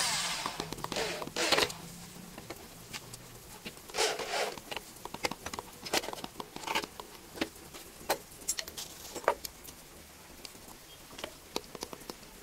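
Handling noise as an energy meter is screwed down onto a wooden board: two short bursts of a power drill driving a screw in the first two seconds, then scraping and scattered clicks and knocks as the meter is pressed and shifted on the board.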